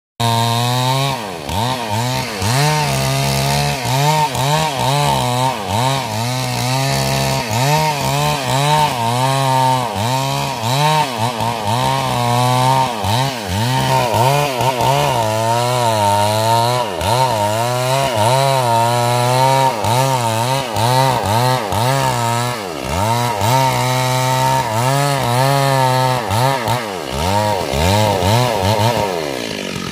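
Stihl MS 382 two-stroke chainsaw running at high revs, cutting wood, its pitch wavering continuously. The revs drop right at the end.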